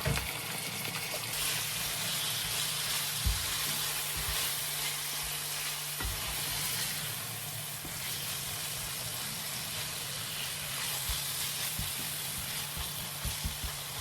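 Onions and ginger garlic paste sizzling in a frying pan, a steady hiss that is somewhat brighter in the first half, with a few short taps of a stirring utensil against the pan.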